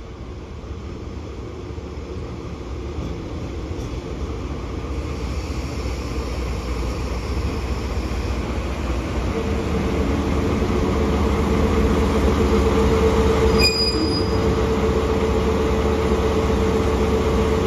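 DE10 diesel-hydraulic locomotive hauling six wagons, arriving at the platform: its engine rumble grows steadily louder as it approaches. From about halfway a steady whine joins it, and a brief high squeak comes near the end.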